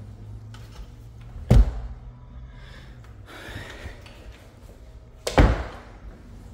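Two heavy thuds about four seconds apart, a closet door being bumped and swung shut, over a steady low hum.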